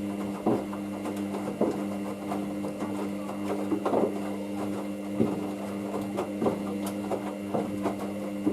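Hoover DYN9144D3X washing machine's drum motor running with a steady hum as the drum turns in the main wash, with irregular thuds of the wet load dropping inside the drum about once a second.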